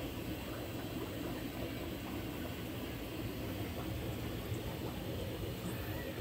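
A steady low rushing noise with no distinct events.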